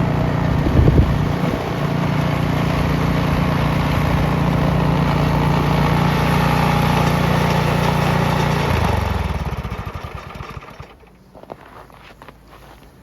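Snowblower's small petrol engine running steadily, with a brief louder burst about a second in. About nine seconds in it is shut off and winds down, stopping within two seconds, followed by a few faint clicks.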